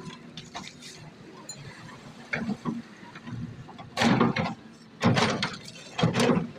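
Kobelco excavator bucket working river stones: three loud clattering crashes of rock about a second apart, each about half a second long, over a steady low rumble.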